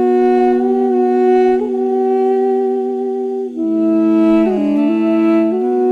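Background music: a slow, sustained chord of several held notes that shifts to a lower chord about three and a half seconds in and returns near the end.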